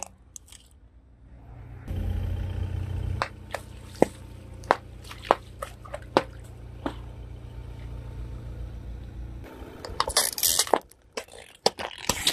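A car tyre rolls over plastic bags filled with coloured liquid, squishing them as they burst and spill, with a series of sharp pops and drips. Near the end comes a short loud burst of crushing and then crackling as the tyre goes over plastic yogurt cups.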